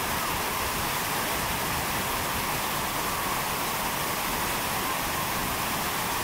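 Steady rushing of flowing water: an even hiss that does not change.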